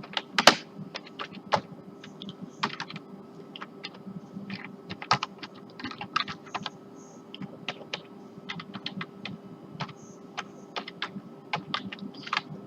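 Typing on a computer keyboard: irregular keystrokes, some quick runs and some single presses, over a steady low hum.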